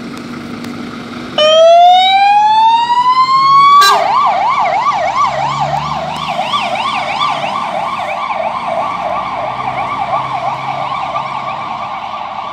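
Fire engine's siren switching on about a second and a half in, over the Scania truck's running engine: one tone rising in pitch for about two seconds, then a fast warble that fades as the truck drives away.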